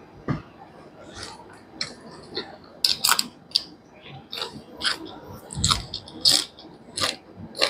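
Close-miked mouth sounds of a person eating chicken curry, rice and raw leafy greens: chewing with many short, irregular sharp clicks and wet smacks.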